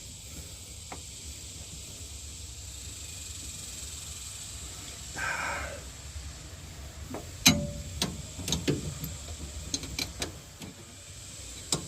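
A faint steady hiss, with a short scraping noise about five seconds in, then a series of sharp clicks and knocks in the second half, like tools and metal parts being handled.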